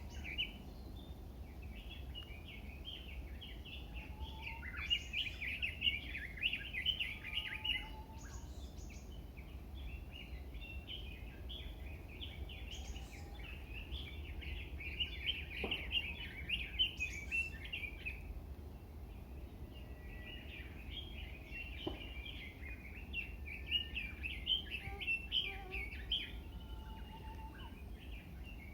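A wild songbird singing long runs of rapid, jumbled chattering song, three bouts in all, over a steady low rumble.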